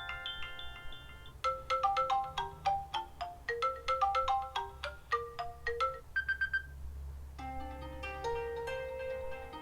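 New iOS 7 iPhone ringtones previewed one after another. A rising run of held notes stops about a second in, a quick plucked melody follows, then a short high two-note beep. A new tone of slower, chime-like held notes starts near the end.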